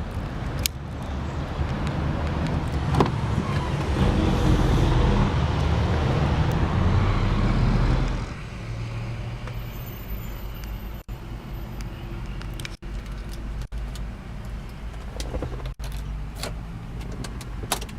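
A 2003 Volkswagen Passat's 1.8-litre turbocharged four-cylinder engine starts and runs. It runs louder and faster for the first several seconds, then drops to a steady idle about eight seconds in.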